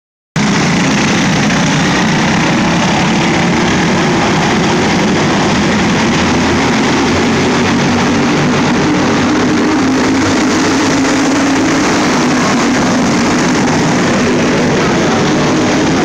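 Engines of a pack of racing go-karts running around the track as a loud, steady din.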